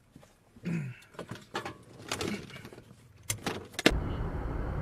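Irregular clicks, knocks and rattles inside a crashed car with a shattered windshield. About four seconds in they give way abruptly to the steady low rumble of a car driving on a highway, heard from inside.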